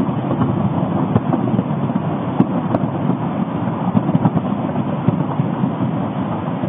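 Steady low rumble of Popocatépetl's explosive eruption, with scattered short crackles through it.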